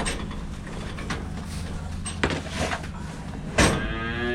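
A cow mooing near the end, one long call, over the steady low hum of an idling engine. Scattered knocks and clanks sound throughout, with one loud bang just before the moo.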